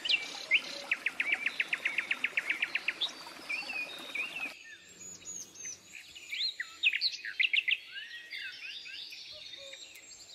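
Several forest birds calling and singing, with short chirps and whistled glides, and a fast trill of about eight notes a second near the start. About halfway through the background noise drops suddenly while the bird calls continue.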